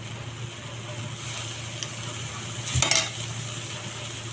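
Butter and spices sizzling in a hot kadai, with a short clatter of pan and steel spoon about three seconds in as a block of butter goes into the pan.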